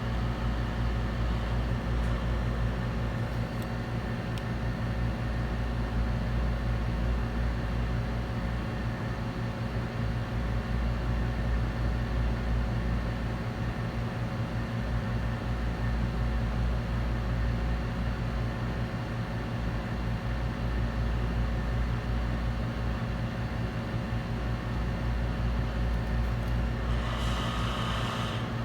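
Steady low machine hum with an even drone, unchanging throughout, with a brief higher hiss rising in just before the end.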